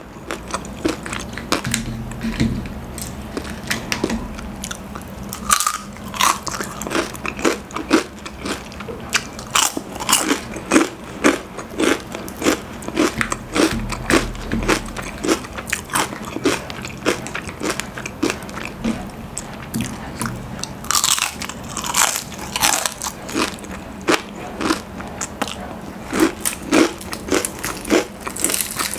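Crispy Popeyes fried chicken skin crunching between the teeth as it is bitten and chewed: a continuous run of crackly bites and chews, with a few louder crunches about two-thirds of the way through.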